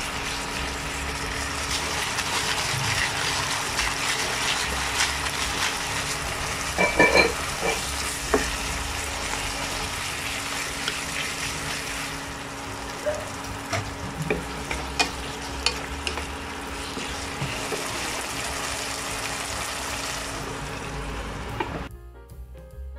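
Chicken thigh pieces sizzling steadily as they fry in a reducing honey, oyster-sauce and sesame-oil glaze in a nonstick pan. A wooden spatula stirs them and knocks against the pan, loudest about seven seconds in, with a run of clicks a little past the middle. The frying cuts off about a second before the end.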